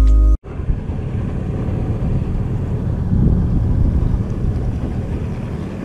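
Background music that cuts off about half a second in, then a steady low rumble of wind buffeting the microphone out on the open water.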